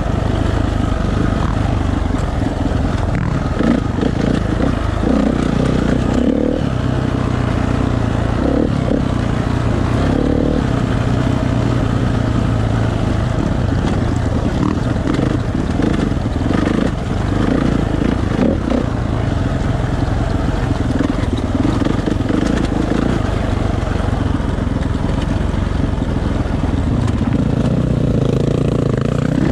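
Dirt bike engine running steadily at low, shifting throttle, heard from on the bike, with clatter and scraping as the tyres and chassis go over rocks.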